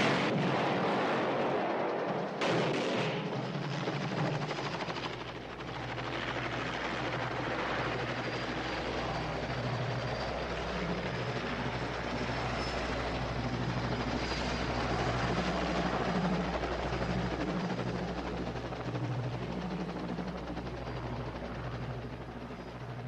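A helicopter flying, its rotor and engine running steadily with an uneven low beat. There are two loud bangs in the first few seconds.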